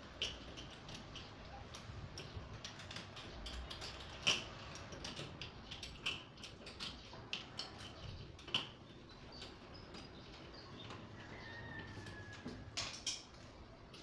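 Small metallic clicks and taps of a cylindrical doorknob lockset being fitted together by hand, the inside knob turned and worked onto the spindle and screw posts. The loudest clicks come about four seconds in, near eight and a half seconds, and again shortly before the end.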